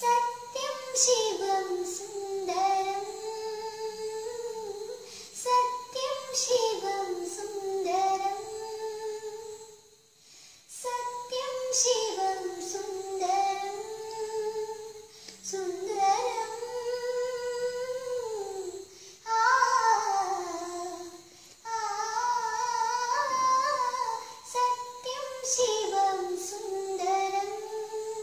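A young girl singing solo with no accompaniment: long held notes that bend and glide, sung in phrases of a few seconds, with a short break about ten seconds in.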